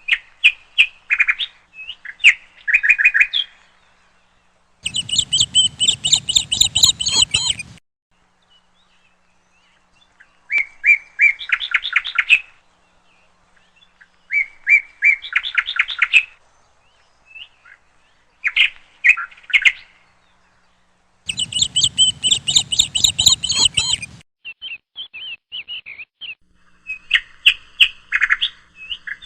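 Pet conure parrots chirping in short runs of quick chirps with pauses between. Twice, about five seconds in and again about twenty-one seconds in, comes a louder, fuller burst of chatter lasting about three seconds.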